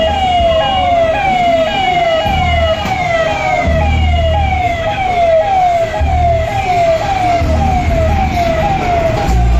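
Police vehicle's electronic siren wailing in a fast repeating pattern, about two falling sweeps a second, over the low rumble of vehicle engines.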